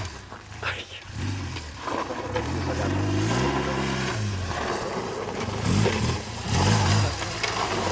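BMW R 1200 GS Adventure's boxer-twin engine revving up and falling back as the bike is ridden slowly off-road. There are short blips of throttle near the end.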